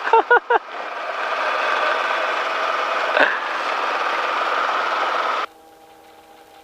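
Helicopter engine and rotor noise heard through the headset intercom, a steady mechanical drone that cuts off suddenly about five and a half seconds in, as the intercom mic closes, leaving a faint steady hum.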